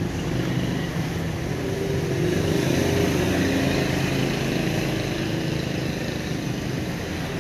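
Street traffic: motorbike and car engines running past in a steady hum, a little louder for a couple of seconds near the middle.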